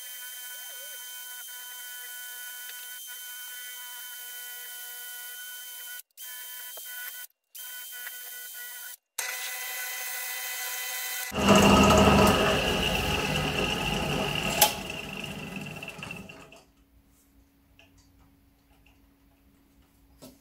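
Wood lathe running with a steady high whine, broken by a few short dropouts. About 11 seconds in, a much louder, rougher noise takes over as the spinning bowl is polished. It dies away about five seconds later, leaving a faint low hum.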